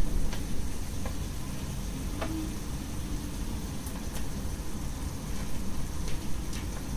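Cashew nuts dropped by hand into a frying pan of thick bread halwa: a few faint, scattered ticks, over a steady low rumble.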